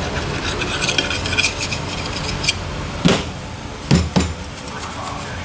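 Metal hand tools and parts clinking: a quick run of light metallic ticks, then three louder knocks about three to four seconds in.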